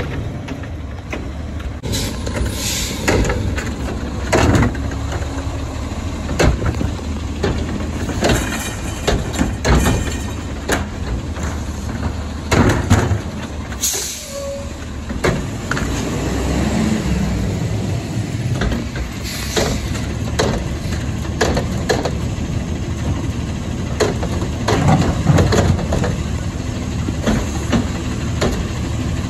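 Automated side-loader garbage truck working the curb: the diesel engine runs steadily while the hydraulic lift arm grabs and dumps plastic carts, with repeated knocks and clatters of the carts. There is a short hiss about halfway through.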